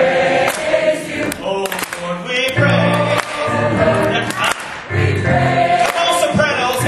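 Adult gospel choir singing.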